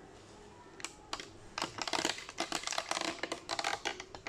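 A quick, dense run of short, sharp clicks and taps. It starts about a second in and is thickest in the middle.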